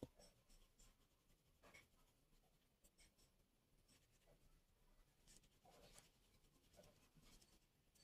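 Faint rubbing and scratching with scattered light clicks: a cloth wiping an aluminium fan motor cover as it is handled and turned, cleaning its bushing.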